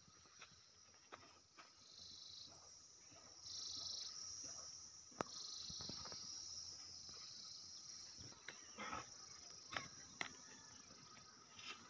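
Faint, steady high-pitched chirring of an insect chorus in open grassland, swelling a little about three and a half seconds in, with a few scattered clicks and taps.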